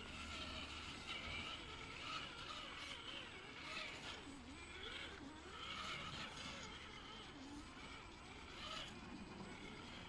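Traxxas TRX-4 RC rock crawler's electric motor and geared drivetrain whining faintly as it crawls, the pitch rising and falling with the throttle.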